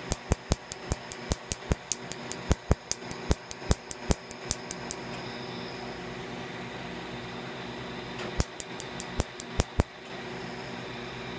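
Quanta Q-switched tattoo-removal laser firing onto tattooed skin: sharp snapping pulses about five a second. They stop about five seconds in, and a second quick run follows near the end and stops about a second and a half later.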